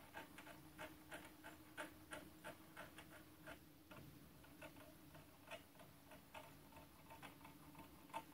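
Faint, fairly even ticking, about three light ticks a second, over a faint steady hum.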